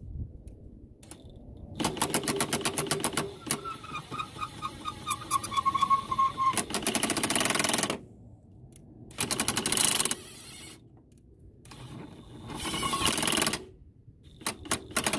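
Cordless impact wrench hammering in five bursts on a rusted, seized alternator bolt. The longest burst lasts about four seconds and carries the motor's whine.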